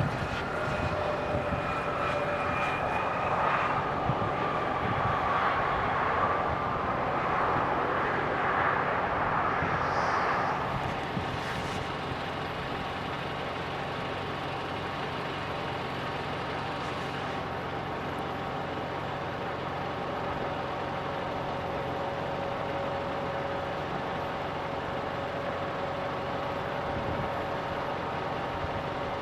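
Jet airliner engines whining as the aircraft goes by, the whine falling in pitch over roughly the first ten seconds and then settling into a steadier, slightly quieter engine tone.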